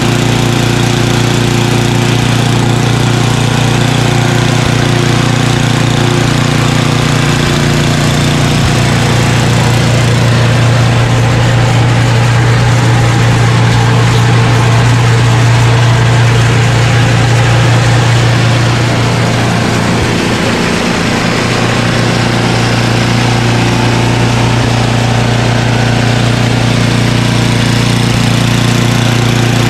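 Craftsman 29-inch snowblower's 9 hp Tecumseh Snow King single-cylinder engine running steadily, holding its speed without surging after its carburetor pilot jet was cleared. Its pitch and loudness shift slightly between about 10 and 20 seconds in.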